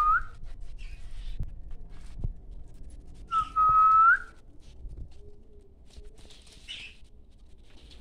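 A clear whistled note, held steady and flicking upward at its end, about three and a half seconds in; the tail of a similar note ends just as the sound opens. Soft, brief budgie chirps come in between.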